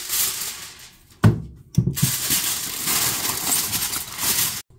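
Aluminum foil crinkling as it is spread and pressed over a glass casserole dish, with a sharp knock a little over a second in.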